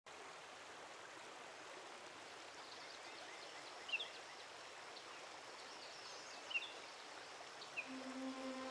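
Faint steady rush of flowing river water, with a few short high bird chirps. A low sustained music note comes in near the end.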